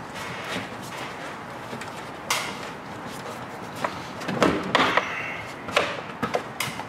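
Air intake tube being pushed and worked back onto the throttle body of a Ram 1500 5.7 L V8 by hand: scattered knocks and rubbing of the tube against its fittings, a sharp knock about two seconds in and a cluster of knocks around four and a half to five seconds.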